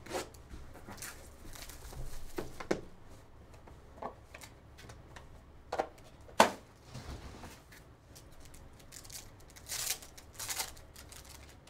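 Plastic wrapping torn off a sealed trading-card hobby box and foil card packs handled, crinkling in short irregular bursts. A sharp click about six seconds in is the loudest sound, and two louder bursts of crinkling come near the end.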